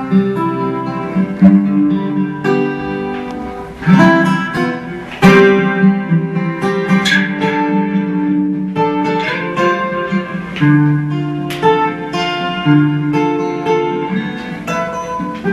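Solo acoustic guitar playing a slow instrumental passage of plucked chords and single melody notes, with no singing.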